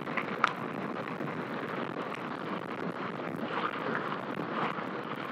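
Bicycle rolling fast on tarmac: steady tyre noise and wind rushing over the helmet-camera microphone, with one sharp click about half a second in.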